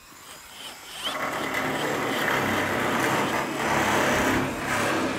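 Cordless power driver driving a screw into a steel door jamb, the motor spinning up about a second in and running steadily, easing off briefly near the end.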